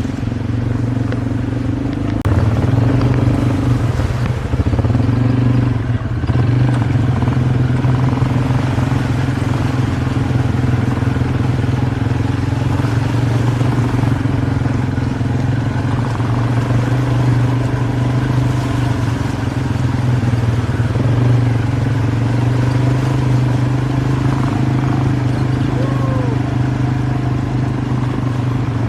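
A motor vehicle engine running at a steady, even pitch for the whole stretch, with slight swells in loudness.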